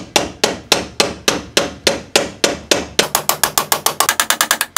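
Hammer blows on the end of a steel motorcycle swingarm spindle, which is being used as a drift to drive a needle roller bearing into the swingarm pivot. Sharp metal-on-metal strikes with a short ring, about three a second at first, quickening to about six a second for the last couple of seconds.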